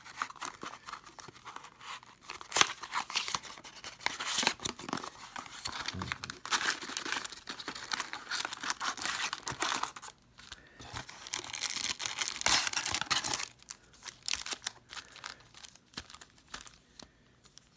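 A trading card box's packaging being torn open and crinkled, in several stretches of crackling with brief pauses between them.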